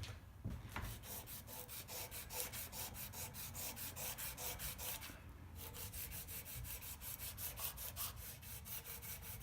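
Rebuilt National Walking Sprinkler A5 turned by hand on its freshly fitted bearings and cork and nylon seals, making a rhythmic rubbing scrape about six times a second, with a short pause about five seconds in. The part turns tight, with no slop.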